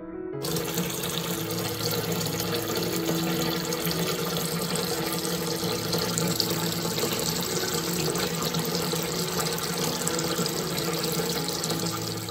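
Bath tap running, water pouring steadily into a bathtub. It starts suddenly about half a second in.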